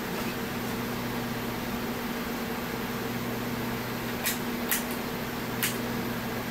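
Steady low hum and hiss from the bench electronics driving the plasma tube. Three sharp clicks come between about four and six seconds in, as power is switched on and the neon tube lights for the first time.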